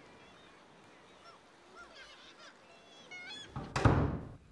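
Faint birds calling in short chirps that rise and fall, then a loud low rumbling rush for about a second near the end.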